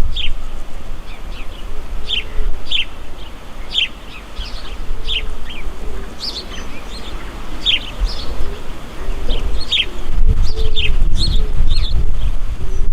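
Small birds chirping: many short, high notes that slide downward, repeated in quick succession. A low rumble underneath grows louder about ten seconds in.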